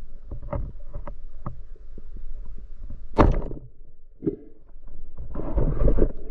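Underwater sound on a spearfishing dive: scattered clicks and knocks, a short sharp burst about three seconds in, and a longer rush of noise near the end.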